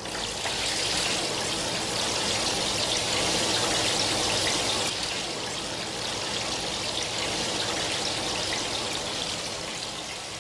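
Water splashing and spraying steadily as a nitinol heat-engine wheel spins, its nitinol wire loops dipping through the water bath in a copper pan.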